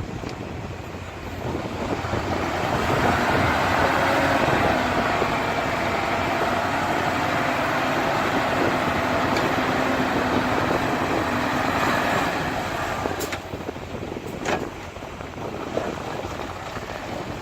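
Diesel engine of heavy earthmoving machinery working. It swells about two seconds in, runs steadily under load, then eases off, with a couple of sharp knocks near the end.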